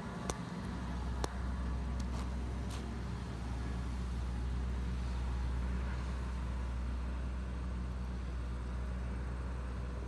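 Diesel engine of a John Deere combine harvester running steadily with a low hum as the combine drives away. A few sharp clicks sound in the first three seconds.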